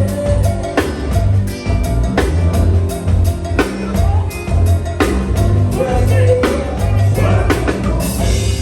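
Live band playing a steady beat: drum kit hits over a pulsing bass line.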